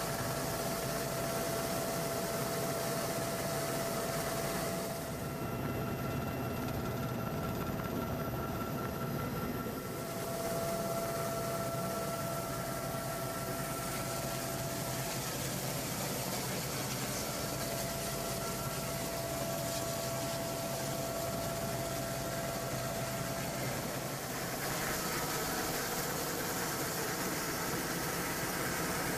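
Cabin noise of a twin-turbine Super Puma helicopter in flight: a steady engine and rotor noise with a thin, constant whine over a broad hiss. The hiss dulls for a few seconds about five seconds in.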